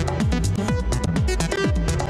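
Electronic music with a steady beat and a pulsing bass line that drops in pitch on each note.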